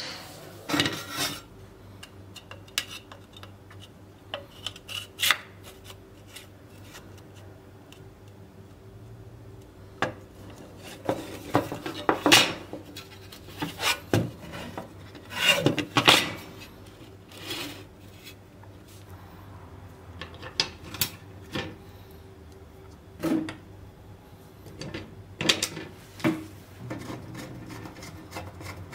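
Scattered clinks, knocks and scrapes as a steel hand-saw blade, its metal back strip and plastic handle are handled and fitted together on a workbench, with a screwdriver turning the handle screws near the end. A faint steady hum runs underneath.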